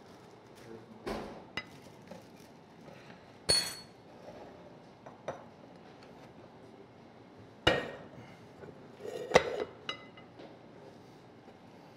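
A serving spoon knocking and clinking against a non-stick pot and a white ceramic serving dish as curry is spooned out: a handful of separate knocks, one with a clear ring about three and a half seconds in and the sharpest near the end.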